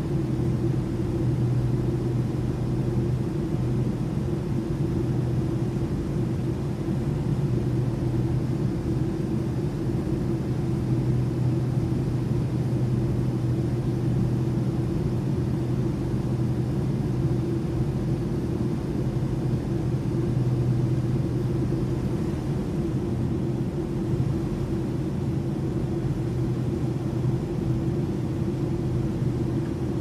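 Aeroplane cabin interior in flight: a steady drone of engines and airflow, with a constant low hum running under it.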